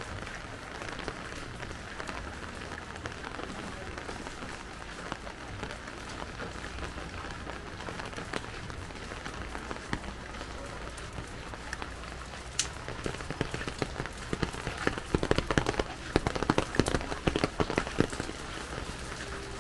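Steady rain falling, with raindrops pattering. From about two-thirds of the way in, a dense run of loud, close taps lasts several seconds.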